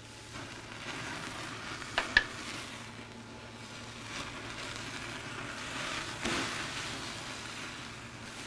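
Basting liquid poured over a lobster tail on a hot gas grill, sizzling steadily as drips flare up in the flames. Two sharp pops come about two seconds in, and a smaller one comes later.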